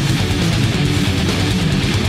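Loud, steady background rock music with strummed guitar.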